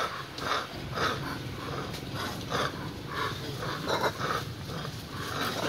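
An animal calling in short repeated bursts, about two a second.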